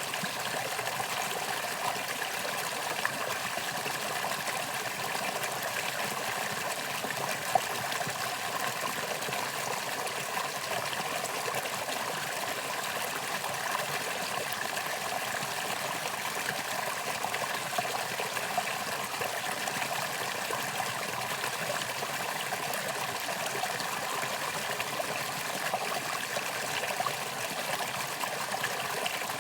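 Mountain valley stream running and trickling steadily, an even rush of flowing water.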